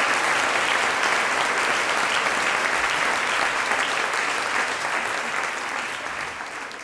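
Audience applauding, a dense even clapping that slowly fades toward the end.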